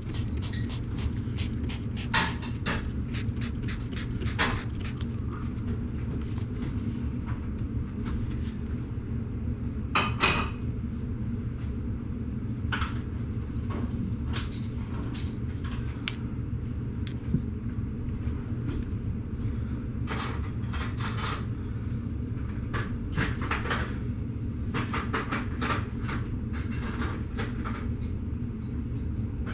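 A steady low machine hum runs throughout. Sharp clicks and light knocks are scattered over it, several in the first few seconds, a louder double knock about ten seconds in, and a cluster in the last third.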